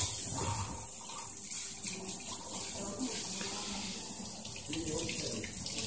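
Water spraying steadily from a pedicure chair's handheld sprayer, rinsing a foot over the foot-spa basin: an even running hiss.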